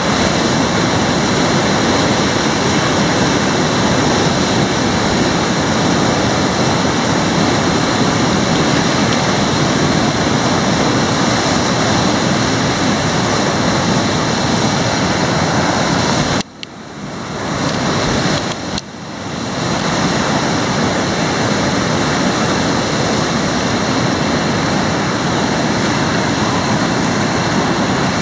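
Loud rushing whitewater of a river rapid, heard close up from a kayak running the drop. About two-thirds of the way through, the sound suddenly drops and goes dull twice in a couple of seconds, then comes back to full.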